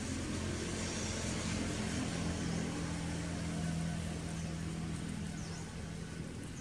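A steady engine hum, as from a motor vehicle running nearby, strongest through the middle, with faint short high chirps over it every second or so.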